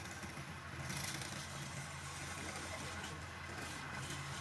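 Wood lathe motor humming steadily while a hand-held flat chisel scrapes shavings off a spinning wooden pot, the cut hissing louder about a second in.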